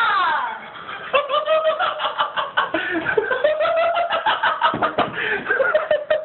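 A person's high voice: a loud shriek that falls in pitch, then about five seconds of high, choppy vocal sounds broken by many quick catches.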